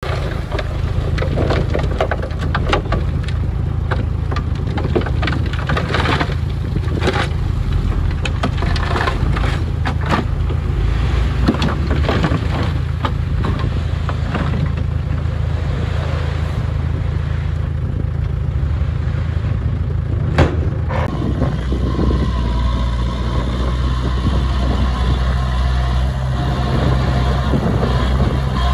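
The diesel engines of a 5-ton dump truck and a small crawler bulldozer run steadily, with irregular clatter as soil and rocks pour off the tipped bed. About 21 seconds in, the clatter stops and an even engine drone with a steady tone remains.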